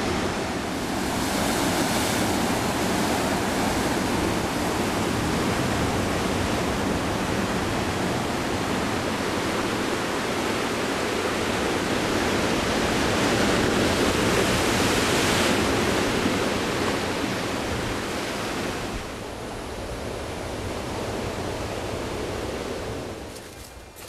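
Sea surf breaking and surging against rocks, a continuous rush that swells louder in waves. It eases off near the end.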